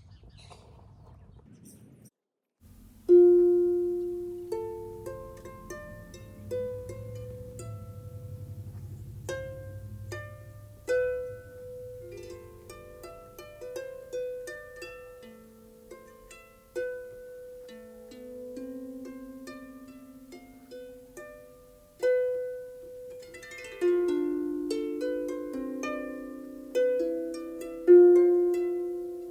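Harp music: slow, unaccompanied plucked notes, each struck sharply and left ringing as it fades, over lower bass notes. It comes in about three seconds in, after a moment of silence.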